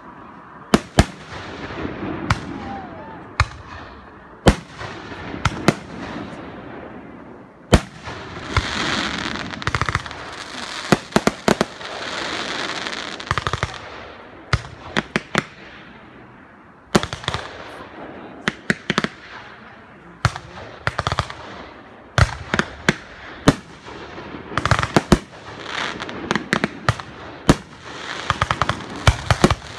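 Aerial fireworks display: shells bursting with sharp bangs, dozens through the stretch, some in rapid clusters, with long crackling sparkle between the reports.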